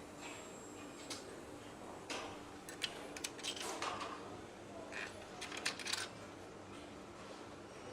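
Metal clinks and taps of engine parts and hand tools being handled during engine assembly, several in quick succession in the middle, over a steady factory hum.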